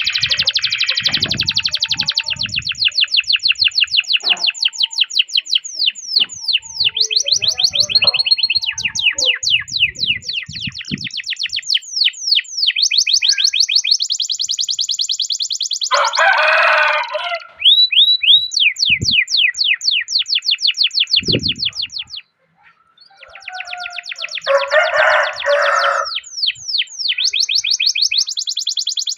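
Domestic canary singing long rolling trills: fast runs of repeated chirping notes, some in sweeping down-glides, with two harsher, buzzier phrases in the second half and a brief pause about two-thirds through.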